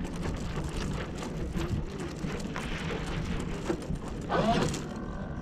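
Water lapping and slapping against a model sailboat's hull at the dock, with wind on the microphone and scattered small knocks. A brief pitched sound, like a short call or voice, comes about four and a half seconds in.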